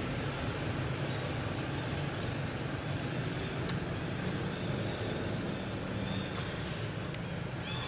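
Steady low background rumble, like distant traffic, with no clear events in it.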